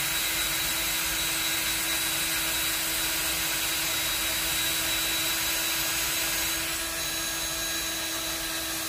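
Handheld power drill with a 1/8-inch bit running at a steady speed while boring a pin hole through a knife handle scale, easing off slightly about seven seconds in.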